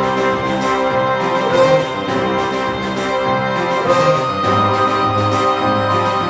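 Background instrumental music: sustained chords with an orchestral, organ-like sound.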